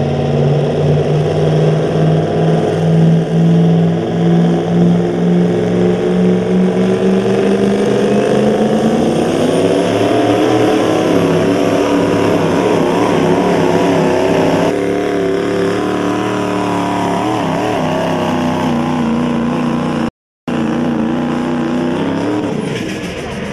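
Chevrolet Silverado's turbocharged Duramax diesel V8 pulling a weight-transfer sled at full throttle. It runs at a steady pitch at first, then the revs climb about nine seconds in and hold high. The engine sound falls off near the end.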